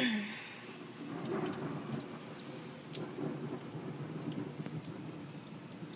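Heavy rain pouring down steadily, with a low rumble of thunder under it. It opens with a sudden loud noise that falls quickly in pitch.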